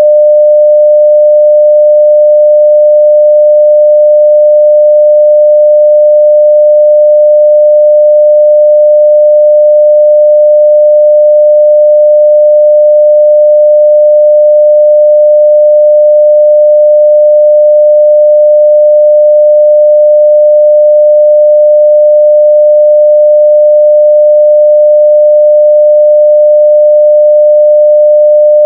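Continuous 600 Hz sine-wave test tone at full level (0 dB), one steady pure pitch that does not change.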